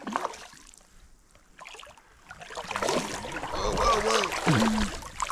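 Shallow creek water sloshing and splashing around a wader's legs, quiet at first and getting louder from about halfway through.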